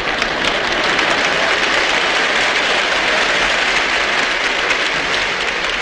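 Large audience applauding steadily: dense clapping from a full house.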